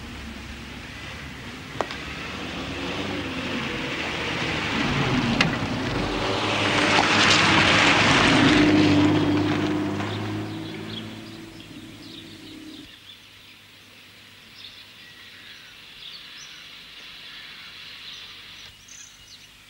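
A vehicle passes, its engine rumble growing louder to a peak about eight seconds in, then fading away. Birds chirp in the quieter last few seconds.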